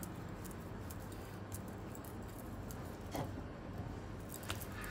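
Faint rustling and light taps of hands rolling and picking up limes on a stone countertop, with a soft knock about three seconds in and another near the end.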